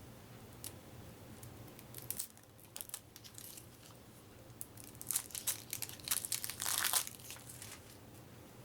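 Wrapper on a deck of playing cards being torn open and crinkled, in scattered crackles that grow denser and louder for a couple of seconds near the end.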